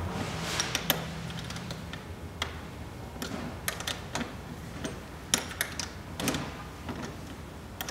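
Irregular sharp metal clicks and taps from a 13 mm wrench working the rooftop tent's mounting-bracket bolts on the roof rack as they are tightened.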